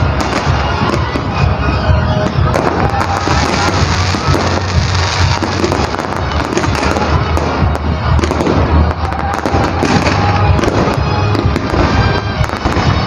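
Aerial fireworks display going off continuously: dense, rapid crackling and pops from crackling-star shells, over a steady low rumble of bursts.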